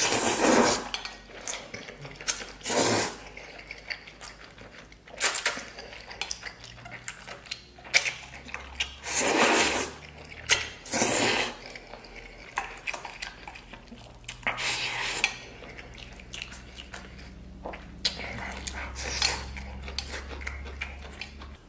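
About seven loud slurps of starch noodles drawn from a stainless-steel bowl, a few seconds apart. Chopsticks clink against the bowl between them.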